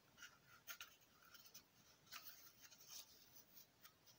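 Faint rustling and scratching of a sock being worked over a cardboard toilet-paper tube, in brief, irregular scratches.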